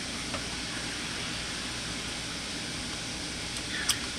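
Steady background hiss with a faint click early on and a sharper click near the end, likely the colorant bottle being handled.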